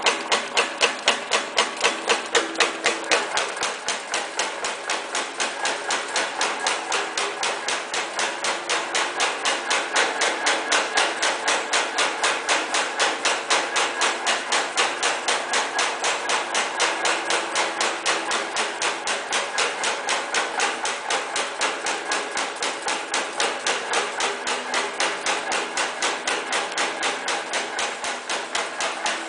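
Silicon STA high-speed punching press stamping teeth into band saw blade steel strip: a rapid, even train of sharp metallic punch strokes.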